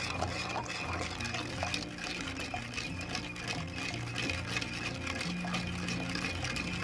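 Water and sugar being stirred with a wooden spoon in a clay pot: liquid swishing and sloshing, with small clicks, over background music.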